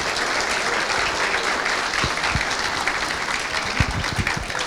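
Audience applauding, steady clapping from many hands at the close of a talk.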